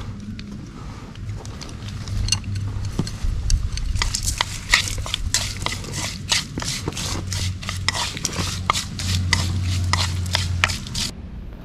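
A metal utensil clinking and scraping against cookware, a dense irregular run of sharp clicks several a second that starts about two seconds in and stops suddenly near the end.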